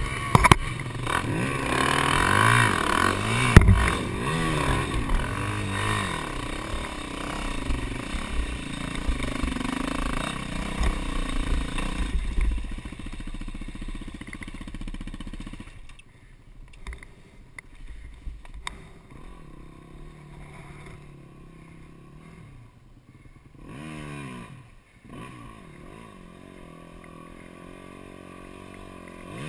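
Dirt bike engine revving up and down over and over as the bike is worked through deep mud, then dropping to a quieter idle about halfway through, with one short rev later. A sharp knock sounds a few seconds in.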